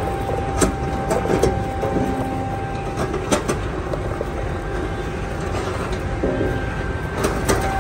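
Turbo TBT1500 automatic garlic peeling and clove-separating machine running: steady motor and blower-fan noise with a thin steady tone. Scattered sharp clicks of peeled garlic cloves dropping into a cardboard box, several in quick succession near the end.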